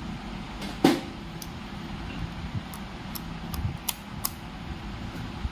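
Clicks and knocks of a clamp meter being handled and its rotary selector dial turned to continuity mode, with one louder knock about a second in and a few fainter clicks after it, over a steady low hum.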